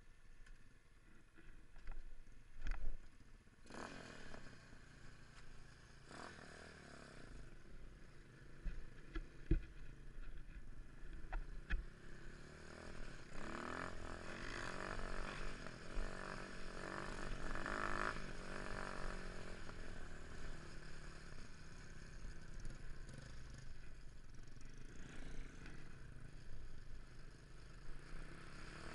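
Motorcycle engines running, one revving up and down in the middle stretch, with a few sharp knocks and clicks in the first dozen seconds.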